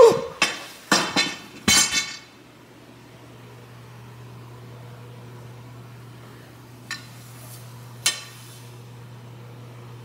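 A curtain rod being handled, knocking and clattering several times in the first two seconds, then two lighter clicks later, over a faint steady low hum.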